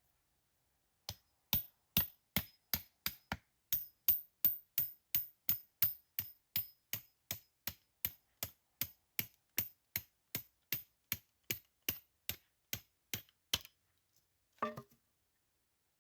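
Even, rapid hammering with a tool, about thirty sharp strokes at roughly two and a half a second, that stops a couple of seconds before the end. A short rustle follows.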